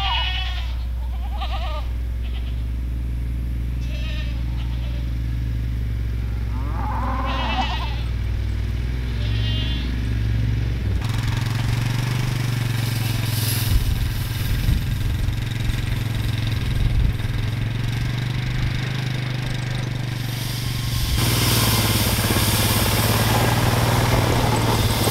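Four-wheeler ATV engine running steadily while goats bleat several times during the first ten seconds. About eleven seconds in the sound turns louder and noisier as the ATV moves off towing a wire cattle panel across the grass.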